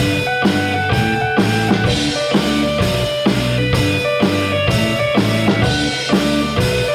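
Rock music: a drum kit played with guitar and bass, keeping a steady beat of about two strokes a second, as in a drum part being practised along with a song.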